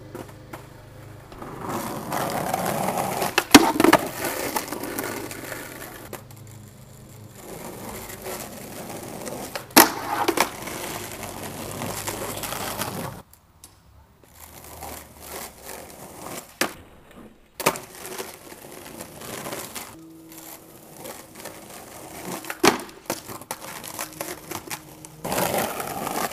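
Skateboard wheels rolling over rough asphalt, broken by about half a dozen sharp clacks of the board popping, hitting a wooden box or metal rail and landing, over several tries with short gaps between them.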